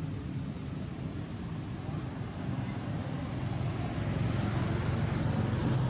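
Steady low rumble of a motor vehicle's engine running, growing gradually louder toward the end.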